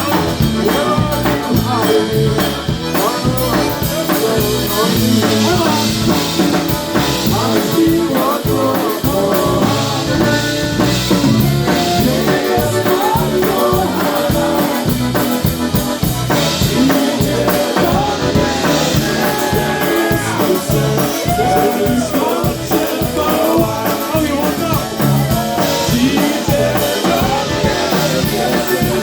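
Live polka band playing an up-tempo tune, with a drum kit keeping a steady beat and a voice singing.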